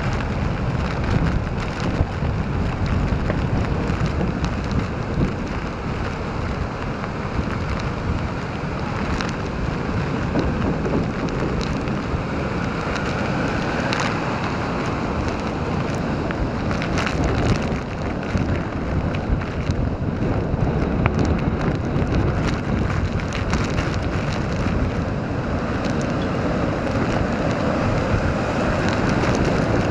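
Hurricane winds buffeting the microphone over heavy storm surf breaking, a steady dense rush of noise throughout.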